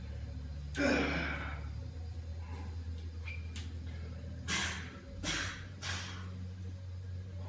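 A man breathing forcefully while bracing for a heavy deadlift: a loud sighing exhale about a second in, then three short, sharp breaths a few seconds later, over a steady low hum.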